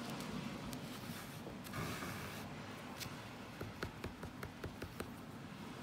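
Soft handling sounds of hand-reweaving a wool kilim: needle and wool yarn worked through the cotton warp threads, with a brief scratchy rustle about two seconds in, then a run of small clicks and taps.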